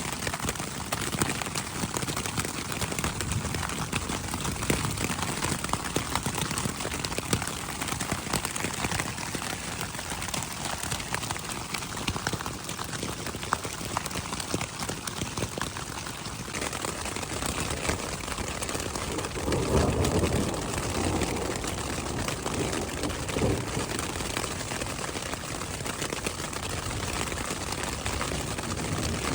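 Hail and rain pattering steadily on a tent, a dense patter of small ticks. About two-thirds of the way through there is a brief louder low swell.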